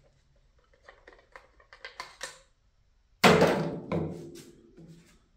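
Light clicks and scrapes of handling, then two loud hollow thunks with a short ringing decay, a little over three seconds and about four seconds in.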